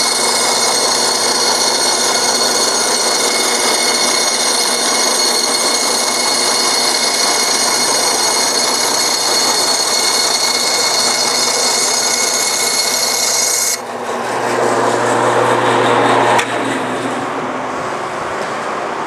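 Forrest Model 214 tilting-head bandsaw running and cutting high-density polyethylene foam: a steady hum under a high whine. The whine stops abruptly about 14 seconds in, and the saw runs on with a coarser noise that swells and then drops suddenly a couple of seconds later.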